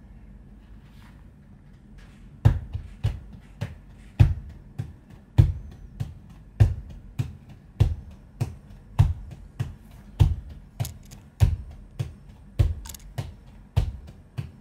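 Hands drumming a steady groove on the top of an upholstered armchair seat used in place of a drum kit: a deep bass thump about every 1.2 seconds, with lighter slaps and taps between. The playing starts about two and a half seconds in.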